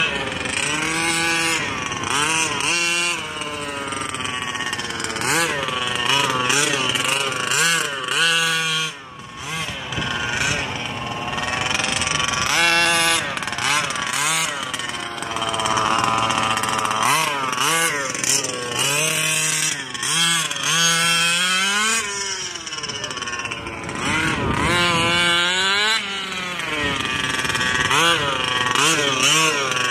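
Scott Finlay 34cc reed-case two-stroke engine of a 1/5-scale Losi 5B gas RC buggy, revving up and down over and over as the buggy is driven, its pitch repeatedly rising and falling, with a brief drop about nine seconds in.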